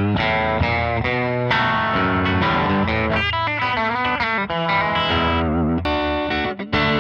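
Reverend Eastsider S electric guitar on single-coil pickups, played through an amp with some grit: a run of single notes and chords, with a wavering, bent note about five and a half seconds in and a brief break in the playing just before the end.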